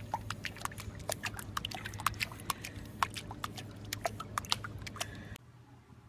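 Pug puppy paddling in swimming-pool water while held, its paws making quick, irregular small splashes and slaps over a low steady hum. The sound cuts off suddenly about five seconds in, leaving faint room tone.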